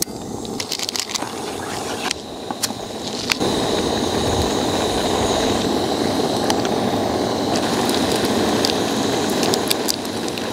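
Portable camping gas stove burner running with a steady hiss under a pot of water coming to the boil, louder from about three and a half seconds in, with scattered light clicks and taps as the noodles go in.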